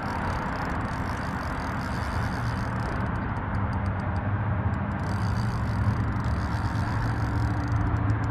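Steady motor drone with a low hum and a hiss, growing slightly louder about halfway through.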